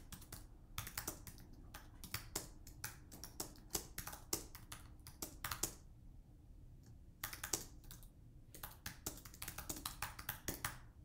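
Typing on a computer keyboard: quick runs of keystroke clicks, with a break of about a second a little past halfway.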